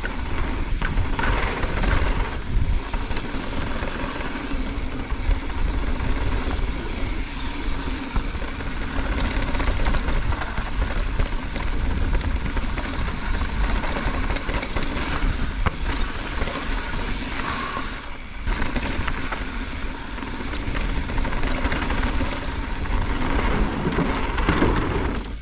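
Wind rushing over the camera microphone, with the tyre rumble and rattling of a mountain bike riding fast down a dirt trail.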